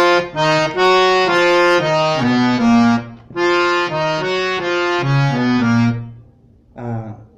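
Harmonium playing a song melody note by note in two phrases, with a short break about three seconds in and the playing stopping about six seconds in.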